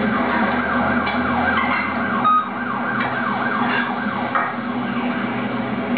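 Siren-like sound from a television soundtrack: quick, repeated falling wails, about two or three a second, over a steady drone.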